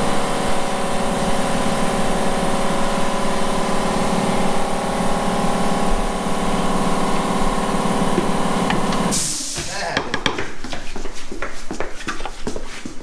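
A steady machine hum with several held tones stops suddenly about nine seconds in with a short burst of hiss. Light metallic clicks and taps of hand tools on the bare Volvo T6 engine block follow.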